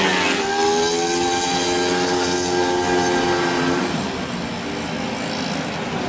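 Several racing 131cc automatic scooters going by at high revs. The pitch drops sharply as one passes, a held engine note fades out about four seconds in, and a noisier mix of the following scooters' engines continues.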